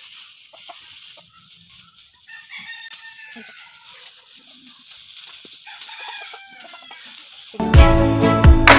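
Chickens clucking and a rooster crowing in the background. Near the end, loud music with a steady beat starts abruptly and drowns them out.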